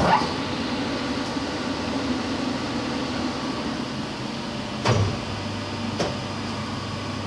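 Electric drive motor of a hydraulic power unit switched on and running with the hydraulic pump uncoupled, a steady hum with no abnormal noise: the motor bearings are fine, which points to the pump as the source of the abnormal sound. Two brief clicks come about five and six seconds in.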